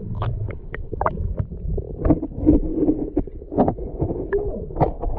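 Muffled underwater sound picked up by a camera held below the surface while snorkelling: a low rumbling wash of moving water with many scattered sharp clicks and knocks.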